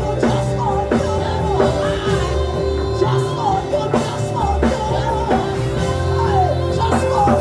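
Worship band playing: steady drum beat under sustained keyboard chords, with a wordless vocal or lead melody line on top.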